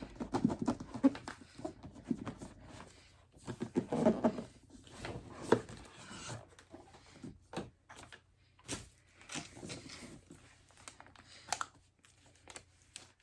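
Packaging being handled while unboxing a laptop: scattered light taps and clicks with bits of paper and plastic crinkling and tearing.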